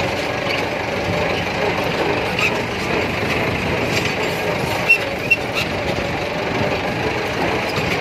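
Massey Ferguson 375 tractor's diesel engine running steadily as the tractor is driven along. Two short, sharp clicks come about five seconds in.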